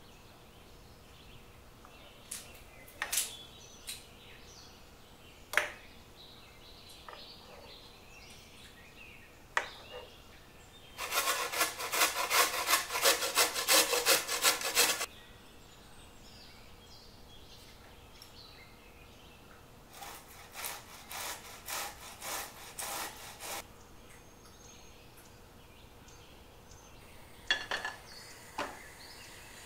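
A carrot being grated on a stainless steel box grater: a run of rapid rasping strokes, about three a second, lasting some four seconds, and a second, quieter run later on. A few scattered knocks come before it, and near the end there is a short clatter of a frying pan being set on the gas hob's grate.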